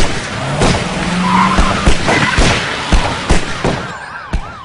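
Loud road-vehicle noise with several sharp knocks. Near the end an emergency vehicle's siren starts, rising and falling about four times a second.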